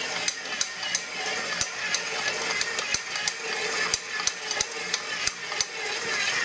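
KitchenAid Pro Line 7-quart stand mixer running, with a sharp click from its gear assembly about three times a second, louder than the motor and mixing noise. The owner takes the clicking for a defect in the new mixer's gearing.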